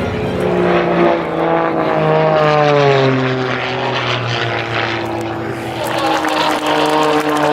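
Single-engine propeller aerobatic plane flying a display, its engine and propeller note sliding down in pitch a couple of seconds in and again near the end as it manoeuvres.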